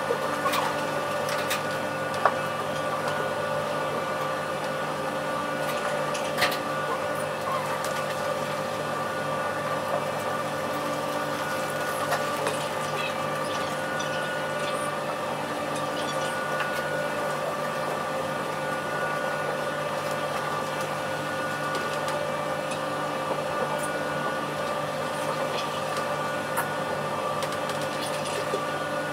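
Steady drone of the car ferry Tokiwa Maru's machinery while under way, a hum at several fixed pitches mixed with a low rush. A few sharp clicks stand out, about two and six seconds in.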